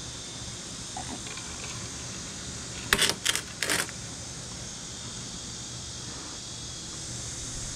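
Ice rattling in a metal drink cup as it is handled: a short cluster of sharp clinks about three seconds in, over a steady high insect hiss.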